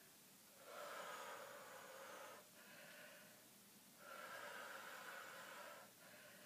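Faint breathing of a woman exercising, heavy with exertion during side lunges. Two long, louder breaths, each followed by a softer one.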